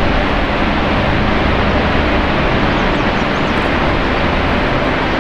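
Steady, loud rushing noise of the Horseshoe Falls and the churning river below, a dense even wash of water sound with no breaks.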